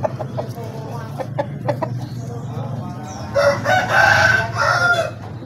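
A fighting cock crows once, a loud call of under two seconds starting about three seconds in. A few short sharp sounds come before it over a steady low hum.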